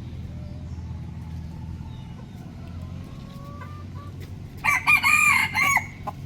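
A rooster crowing once, loudly, starting about four and a half seconds in and lasting just over a second. A low steady hum runs underneath, with faint chirps of small birds.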